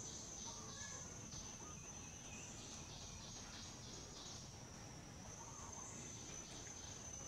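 Insects calling in the background: a steady high-pitched whine with a pulsing trill of a few beats a second that comes and goes over it.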